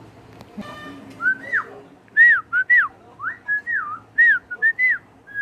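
Myna whistling a run of short whistled notes that swoop up and down in pitch, starting about a second in.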